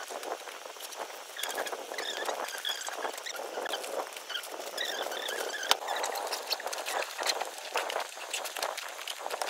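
Rustling and crinkling of fabric packing pouches with clear plastic windows and mesh pouches as they are handled and pressed into a hard-shell suitcase, with many small clicks and taps. There is one sharper knock about six seconds in.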